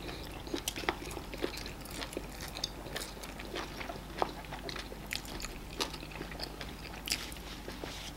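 Close-miked eating of amala and ogbono soup with meat by hand: chewing, wet lip smacks and sharp mouth clicks at irregular moments, with finger-licking.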